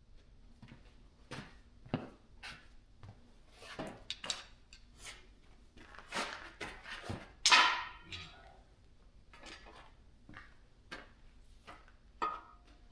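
Metal engine parts and hand tools clinking, knocking and scraping as a small-block Chevy 350 is taken apart, in scattered irregular strokes. The loudest is a longer clatter about seven and a half seconds in.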